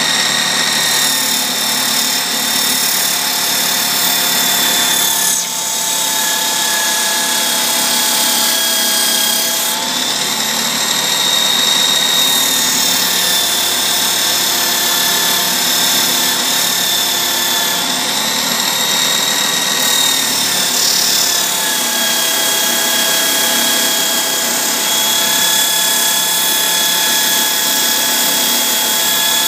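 A motor-driven machine running continuously with a steady whine that shifts slightly in pitch every few seconds, dipping briefly about five seconds in.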